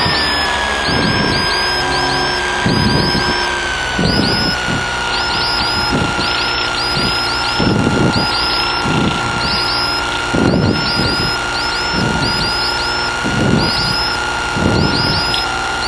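Mazda rotary engine of a Dyke Delta homebuilt aircraft running at taxi power, heard through the aircraft's intercom, with a steady high whine that dips slightly near the start and a pulsing about once a second.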